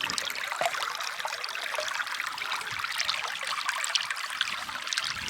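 A small stream trickling and babbling steadily over stones, a hiss of running water with many small splashes.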